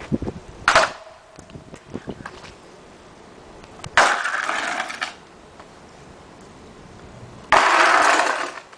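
Skis scraping and sliding over asphalt in rough, noisy passes: a short scrape just under a second in, then two longer slides of about a second each, both starting abruptly, one about four seconds in and one near the end.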